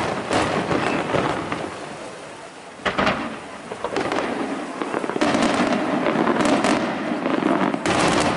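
Aerial firework shells bursting overhead: a sharp bang right at the start and another about three seconds in, then a dense run of overlapping bangs from about five seconds on.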